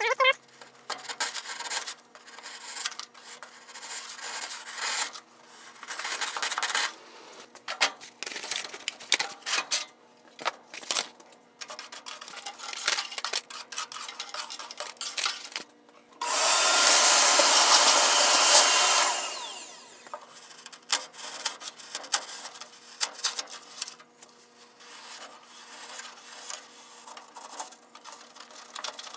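Old kiln insulation being scraped out of a furnace cavity with a homemade sharpened aluminium U-channel scraper, in irregular rasping strokes. About halfway through, a louder steady rushing noise runs for about three seconds and then winds down.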